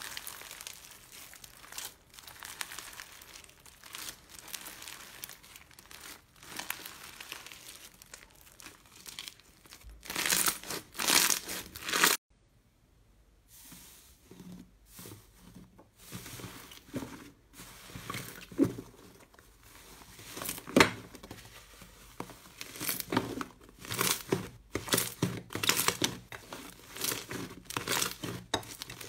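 Hands stretching and pulling apart a pink fluffy slime, making many small crackles that grow louder just before a short gap about 12 seconds in. Then hands pressing, kneading and stretching a large glossy brown slime, with scattered sharp clicks and pops.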